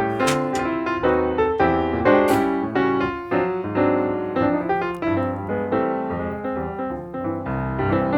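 Background music led by piano: quick, bright notes over a steady bass line, with a few cymbal crashes.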